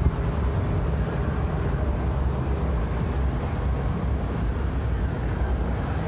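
Steady low rumbling outdoor noise with no distinct events.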